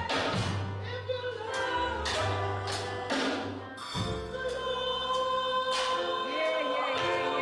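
Gospel music: a choir singing held notes over a bass line and a drum beat.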